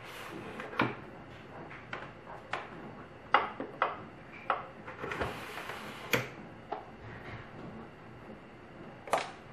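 Telescopic pop-up countertop socket tower being pushed down into the counter and released again: a run of sharp plastic-and-metal clicks and knocks from its latch, a short sliding hiss about five seconds in as it rises, and a click as it locks at the top. A plug clicks into one of its sockets near the end.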